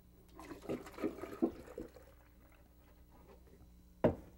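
Milk poured from a carton into a plastic container for about a second and a half, followed about four seconds in by a single sharp knock as a container is set down on the counter.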